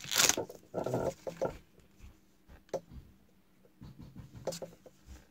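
A trading-card pack wrapper being torn open, with a loud crinkle at the start and more rustling about a second in. This is followed by soft clicks and rustles of cards being slid and flipped in the hand.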